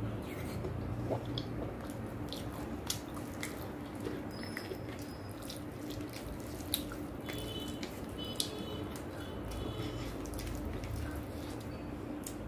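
Wet eating sounds of rice and chicken curry eaten by hand: chewing and lip smacks, with squelching as fingers mix the rice and curry, heard as scattered sharp wet clicks.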